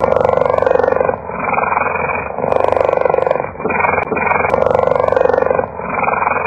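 Leopard vocalising: a rapid pulsing rumble that comes in even phases of about a second each, six in all, alternating like in-and-out breaths.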